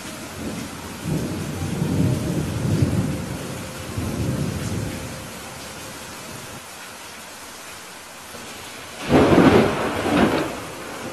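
Steady rain with thunder: a low rumble rolls from about a second in to about five seconds in, then a loud, sharp thunderclap comes about nine seconds in.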